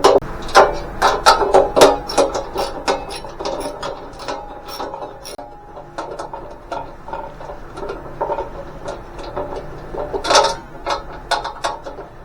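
Hand socket ratchet clicking as a nut and bolt are run down, in quick runs of clicks that are densest in the first three seconds and again about ten seconds in.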